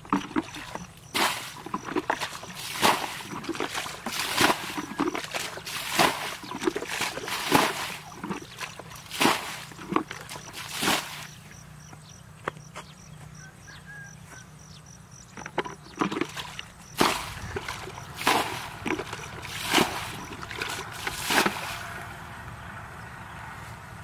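Water splashing and sloshing in a regular rhythm, about one splash every second and a half, with a pause of a few seconds partway through.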